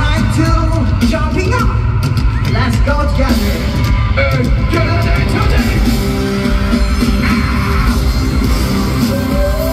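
Live K-pop concert music over a stadium sound system, heard from the audience: a heavy beat under a sung vocal line, with yells from the crowd.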